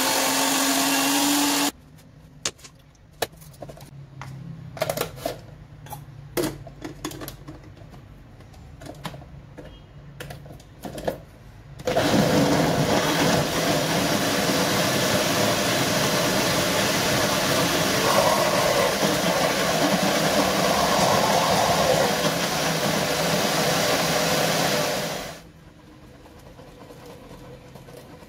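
An electric citrus juicer's motor runs briefly as an orange is pressed onto its cone, then stops. A few clicks and knocks of handling follow. Then a countertop blender runs steadily for about thirteen seconds, blending mandarins with fresh orange juice, and cuts off sharply.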